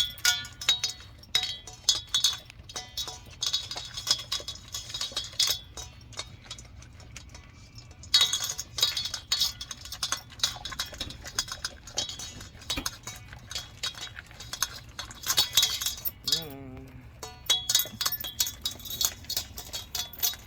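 Dogs eating homemade food from their bowls: rapid, uneven clinking and clicking against the bowls along with chewing, pausing briefly in a few places.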